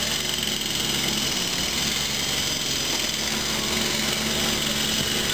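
A steady machine drone, even in level, with a low hum and a higher whine; it sounds like a small motor or engine running.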